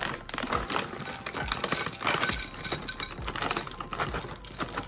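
White chocolate melting wafers poured from a bag into a glass measuring cup: a quick, uneven clatter of small clicks as the hard wafers drop and clink against the glass and each other.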